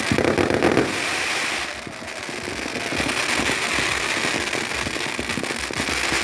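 Fireworks going off in a dense, continuous barrage of crackling pops and bangs, loudest in the first second.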